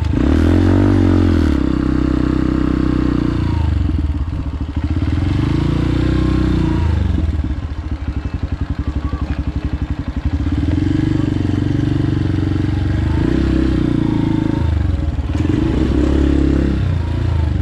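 Motorbike engine running at low speed as the bike is ridden slowly, its note rising and falling several times as the throttle is opened and eased off.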